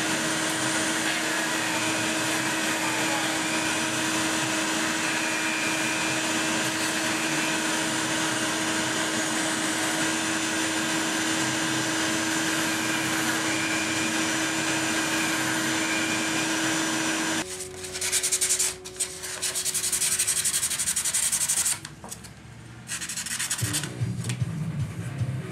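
Benchtop bandsaw running with a steady hum while it cuts a piece of G-10 fiberglass, the shop vac running with it. About 17 seconds in the machine noise drops away. Hand sanding strokes of sandpaper on the G-10 edge follow, rough and stop-start.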